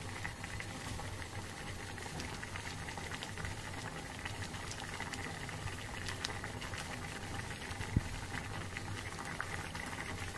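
Cucumber pieces boiling in water in a metal pot: a steady bubbling with many small pops. A single sharp click about 8 seconds in.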